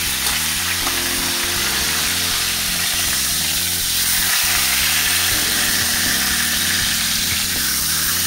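A large pork roast sizzling steadily in hot fat and juices in a wok as it is turned over.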